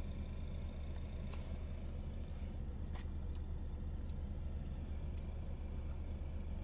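Steady low hum of a car idling, heard inside the cabin, with a couple of faint clicks.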